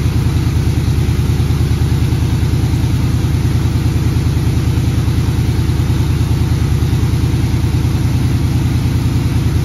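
C3 Corvette V8 idling steadily through used side pipes with built-in mufflers, a very quiet, even exhaust note that the owner takes to mean reverse-flow side pipe mufflers.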